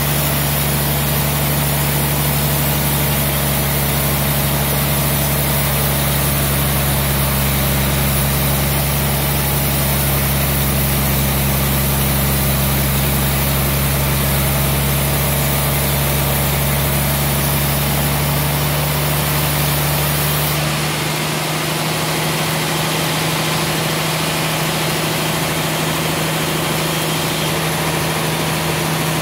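Large sawmill band saw running through a trembesi (rain tree) log, a steady machine hum with a hiss over it. About two-thirds of the way through, the hiss and the lowest rumble drop away as the blade comes out of the cut and the saw runs on free.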